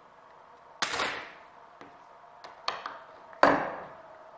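Metal knocks and clinks from metal tube blocks on a steel tube being locked down with a hex key: a sharp knock about a second in and a louder one past three seconds, each ringing briefly, with a few light clicks between.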